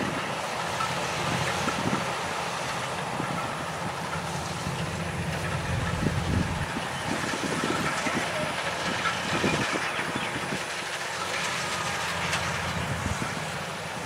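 Rice combine harvester at work in a paddy field: a steady engine drone with irregular mechanical knocks and rattles.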